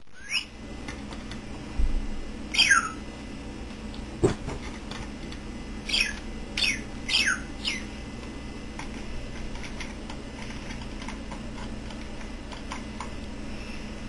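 Budgerigar giving about six short chirps, each sweeping down in pitch, spread over the first eight seconds or so. A single sharp knock comes about four seconds in.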